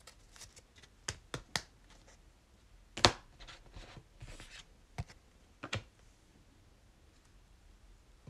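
A few light, sharp clicks and taps from handling trading cards and their foil packs, the loudest about three seconds in, with soft rustling between.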